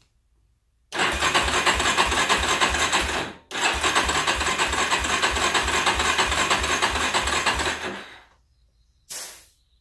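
Electric starter cranking the Yamaha Raptor 350's single-cylinder four-stroke engine without it firing, in two long bursts with even compression pulses about four a second, as for a compression test with the gauge fitted. A brief hiss follows near the end.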